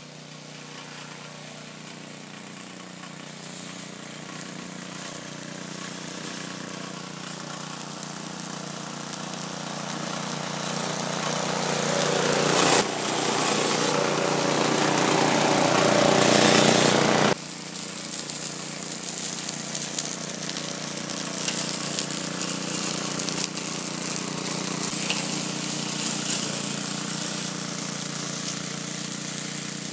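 Walk-behind gasoline lawn mower engine running steadily while cutting grass. It grows louder as the mower comes close, then drops suddenly to a lower, steady level about halfway through.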